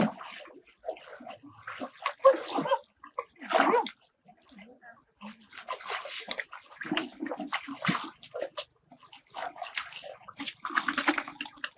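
Water splashing and sloshing in irregular bursts, with short pauses between them.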